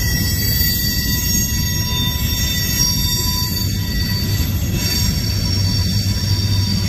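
Freight cars of a CSX manifest train rolling past: tank cars and covered hoppers give a steady, loud rumble of steel wheels on the rails, with thin, steady high tones over it.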